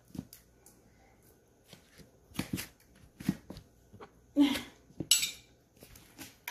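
A spoon clinking and scraping in a bowl, with scattered taps and handling noises, as a homemade scrub is mixed with a spoonful of honey. The sharpest scrape comes about five seconds in.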